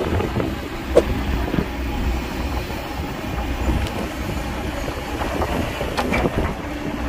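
Heavy diesel machinery running steadily with a deep rumble, with a sharp metallic clank about a second in and another knock near the end.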